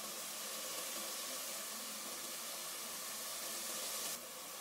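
Steady, even hiss with no distinct knocks or clicks.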